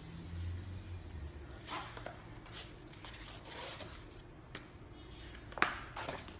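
Thick pages of a wallpaper sample book being turned: a few brief papery swishes, with a sharper snap near the end as a sheet flips over.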